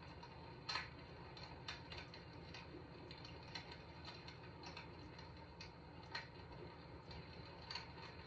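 Faint recorded wood-fire crackling from a fireplace crackle sound box: irregular soft pops and snaps, about one a second, over a low steady hum.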